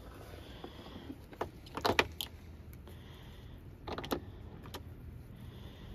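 A few short, light clicks and rattles of fishing tackle being handled: metal pliers and jigs knocking against an open plastic tackle box, a cluster about two seconds in and another about four seconds in, over a faint steady low hum.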